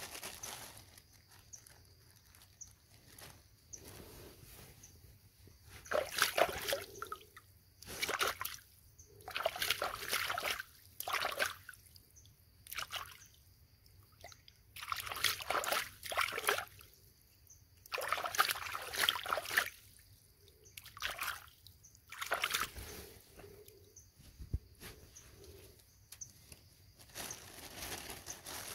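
Water splashing and sloshing in irregular bursts, a dozen or so, each lasting up to a second or two, with quieter trickling between them.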